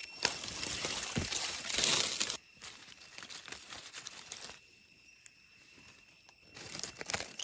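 Dry fallen leaves crackling and rustling as a hand works a knife into the leaf litter and pulls up a mushroom, loudest in the first two seconds, then quieter, with a short burst of rustling again near the end.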